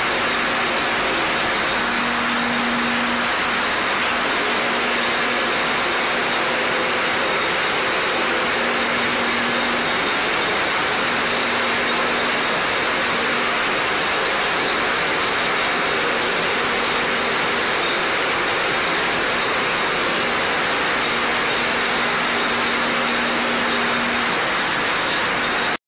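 Bottle-labelling line machinery running: a steady, loud whirring hiss, with a low hum that cuts in and out every few seconds.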